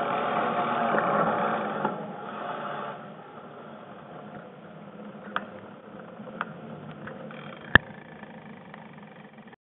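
Mountain bike rolling fast on a gravel trail: tyre, wind and rattle noise, louder for the first three seconds, then quieter with a few sharp knocks, the loudest near the end.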